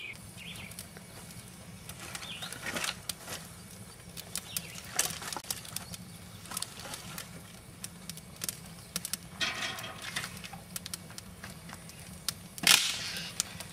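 Wood campfire crackling and popping in a steel fire ring, with scattered sharp pops throughout. Sticks knock and rustle as they are laid on the flames, loudest twice, once past the middle and once near the end.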